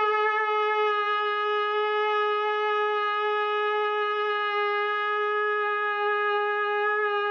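A shofar blown in one long blast, held at a steady pitch.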